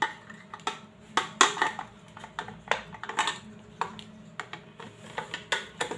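Irregular light clicks and taps, about a dozen over the few seconds, from a voltage tester being handled against the plastic casing of a prepaid electricity meter.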